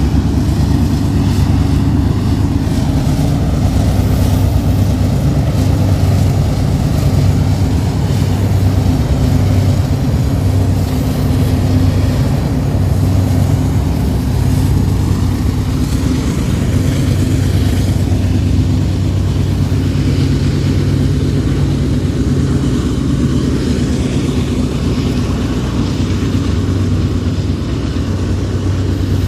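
A diesel locomotive's engine running loud and steady, a low pitched drone over rumbling noise.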